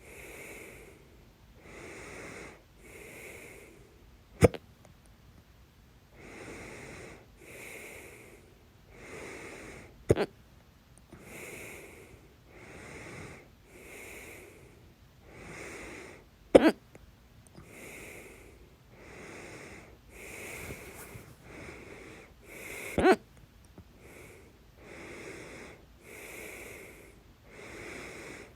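A woman hiccuping loudly, four sharp hiccups about six seconds apart, with quick, regular breathing in and out between them.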